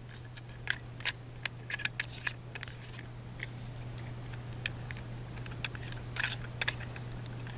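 Plastic LEGO combination-lock wheels and bricks clicking lightly as they are turned and shifted by hand to line up, in irregular clicks about two a second, over a steady low hum.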